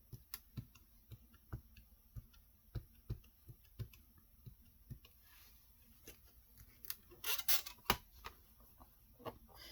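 Light, scattered clicks and taps of clear stamps and a stamp platform being handled and positioned on a desk, with a louder clatter about seven and a half seconds in.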